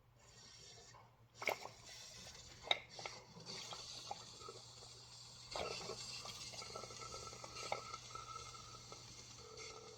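Espresso machine hissing steadily, with liquid running and a few sharp clinks of a cup or glass.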